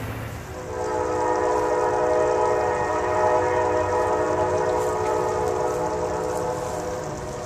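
Diesel locomotive's multi-chime air horn sounding one long blast, over the low rumble of the train.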